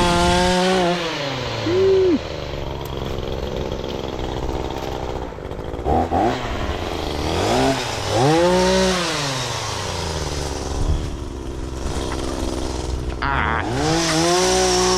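Chainsaw engine running at full throttle, then dropping to low revs about a second in. It is blipped up and down several times in the middle and opened back up to full speed near the end.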